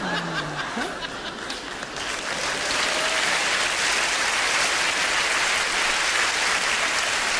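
Large theatre audience applauding, the clapping swelling about two seconds in and then holding steady.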